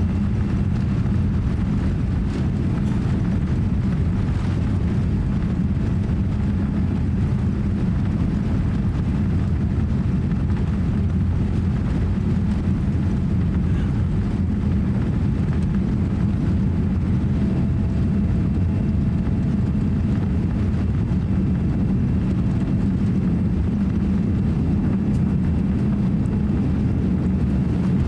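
Boeing 787-8 airliner's GEnx jet engines and airflow heard from inside the passenger cabin: a steady, even, low drone with no change in pitch or loudness.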